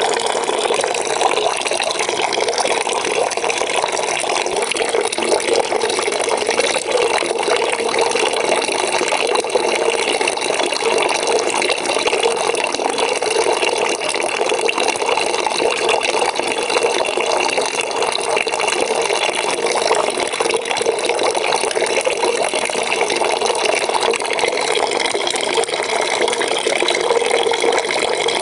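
Water running steadily into a bucket, filling it: an even, unbroken splashing rush.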